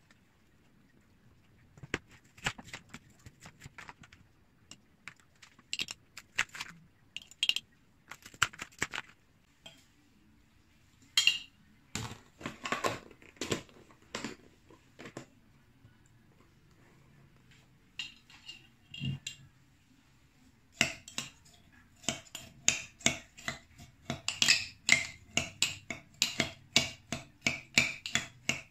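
Metal spoon clinking and scraping against a glass mason jar as strawberries are spooned in and mashed. The clinks are scattered at first, then come in a quick ringing run of about three or four a second over the last several seconds.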